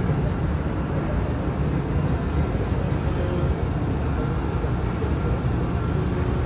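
Cargo ship's engine and propeller, a steady low rumble, churning the water at its stern.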